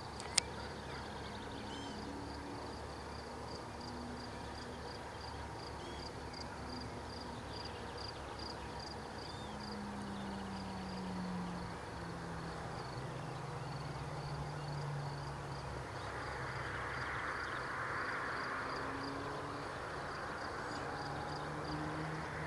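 Rural field ambience: an insect chirps steadily at a high pitch, about two or three chirps a second. Under it runs the low drone of a distant engine, slowly sliding in pitch, with a brief swell of hiss about two-thirds of the way through.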